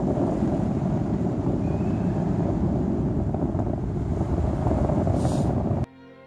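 Steady rushing wind over the microphone of a paraglider in flight. It cuts off abruptly near the end, and soft string music begins.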